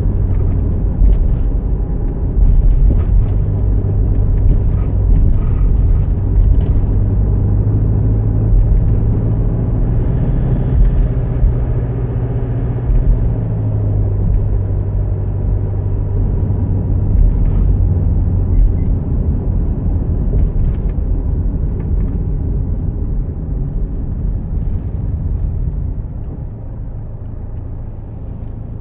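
Car driving on the road, heard from inside: a steady low engine and tyre rumble, a little quieter for the last few seconds.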